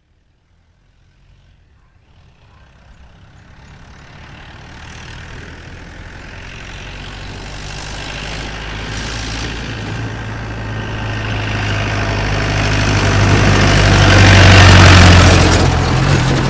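School bus driving past slowly: its engine hum and road noise grow steadily louder from near silence as it approaches, peak about a second and a half before the end as it draws level, then begin to fade as it passes.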